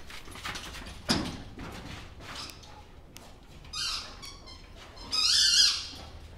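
A dog's squeaky plush toy squeaked twice while the dog mouths it, a short high squeak about four seconds in and a longer, louder one near the end, after a dull thump about a second in.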